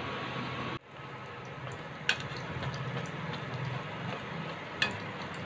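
Egg omelette frying in plenty of hot oil in a kadai, a steady sizzle that breaks off briefly about a second in. Two sharp metal clicks, about two seconds in and again near the end, as the wire-mesh skimmer knocks against the pan.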